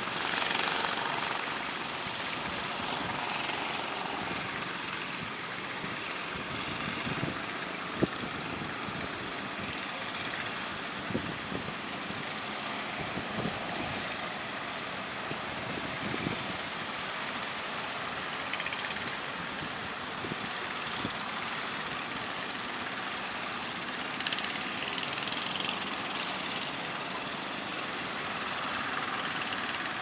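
Heavy surf breaking on a beach as a steady rush of waves, with a fishing boat's engine running under it and a few short knocks.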